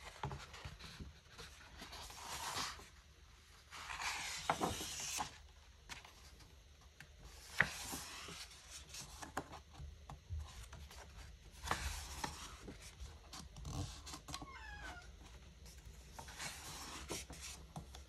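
Paper pages of a hardbound photobook turned by hand: soft swishes and rubs of the sheets several times, with small handling clicks and one sharp tap on the book about halfway through.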